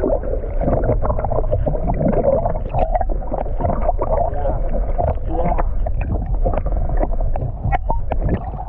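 Muffled underwater sound heard through a submerged microphone: a steady low rumble of moving water with frequent small clicks and crackles throughout.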